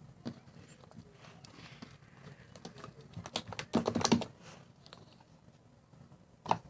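Sticky homemade slime being poked and squished by hand: small irregular clicks and pops as air bubbles in it burst, with a louder run of crackling about four seconds in and one sharp pop near the end.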